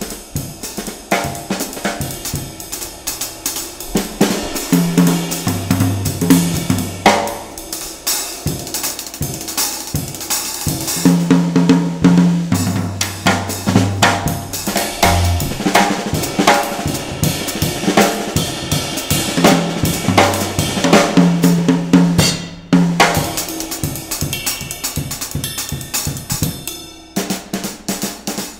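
Drum kit solo in a swing style, played with sticks: fast, busy strokes on snare, bass drum, hi-hat and cymbals, with some drums ringing on.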